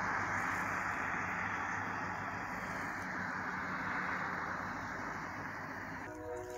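Steady rushing road-vehicle noise with a low hum, slowly fading. A faint chord of steady tones starts at the very end.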